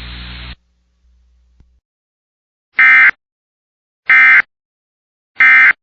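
Radio receiver hiss cuts off about half a second in. Then come the Emergency Alert System end-of-message tones: three short, identical digital data bursts about a second apart, which signal the end of the alert.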